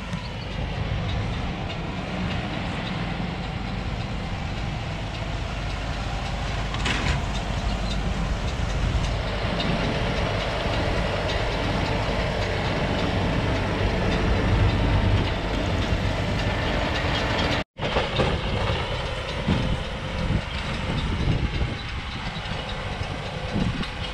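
Fendt tractor engine running with a McHale round baler working behind it, a steady mechanical clatter. It grows louder as the rig comes close and drops out for an instant about three-quarters of the way through before resuming.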